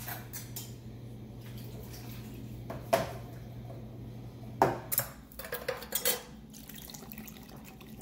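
Canned cherries and their juice pouring from a tin can into a plastic mixing bowl, with a few sharp clinks and taps of the metal can and its cut lid against the bowl, most of them bunched together a little past halfway.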